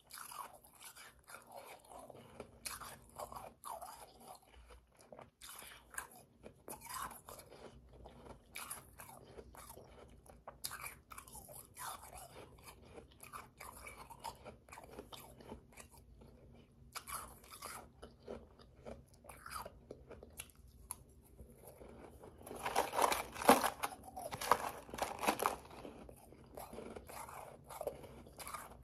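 Close-up crunching and chewing of powdery, slushy ice in a person's mouth: a steady run of small, soft crackles, with a louder, denser stretch of crunching late on.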